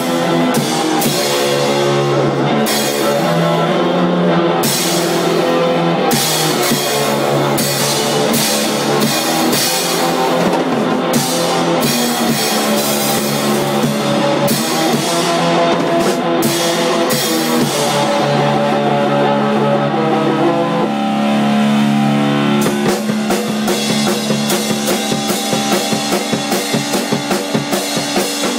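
Rock played on an acoustic drum kit, with cymbal crashes and snare and tom strokes, over a guitar playing held chords. In the last few seconds the drums settle into a fast, even pulsing beat.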